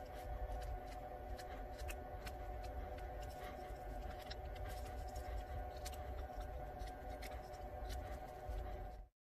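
Small carving knife whittling a wooden lure body by hand: a run of short scraping cuts and clicks as the blade pares shavings off the wood, over a steady low hum. The sound cuts off abruptly near the end.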